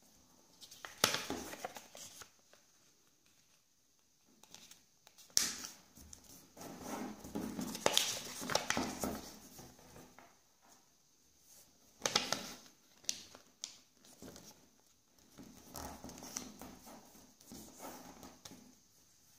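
A sheet of origami paper being folded and creased by hand: the paper rustles and crinkles sharply as fingers press and run along the folds. The sounds come in several short bursts with quiet pauses between them.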